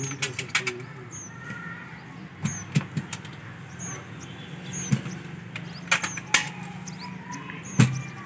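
Sharp knocks and clanks, about eight of them at uneven intervals with the loudest near the end, as metal brackets and parts of horn loudspeakers are handled and fitted. A small bird chirps about once a second, high-pitched, over a steady low hum.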